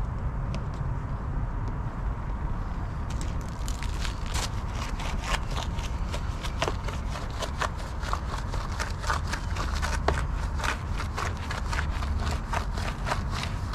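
Bormann Pro BPW 5000 pressure washer running: a steady low rumble, with dense irregular crackling clicks from about three seconds in.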